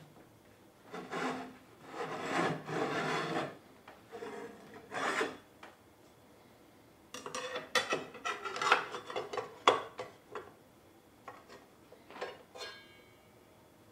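Rubbing and scraping in irregular bursts as a circular saw is handled and worked over, then a quicker run of short clicks and scrapes from about seven to ten seconds in.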